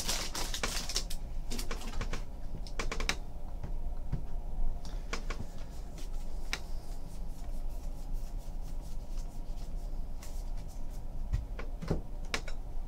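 Baseball trading cards being pulled from a foil pack and flipped through by hand: scattered light clicks, taps and rustles of card stock, over a steady low hum.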